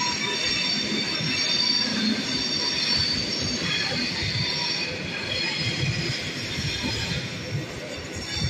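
Train wheels squealing on the rails, several high-pitched squeal tones sounding at once and wavering slightly over a low rolling rumble. The squeal eases somewhat in the second half.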